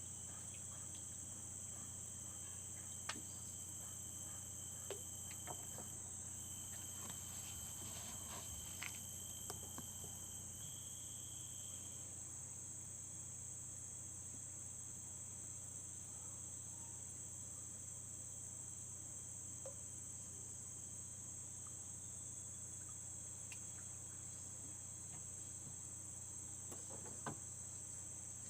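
Steady high-pitched insect chorus, with a second, lower insect trill that stops about twelve seconds in and a few faint clicks.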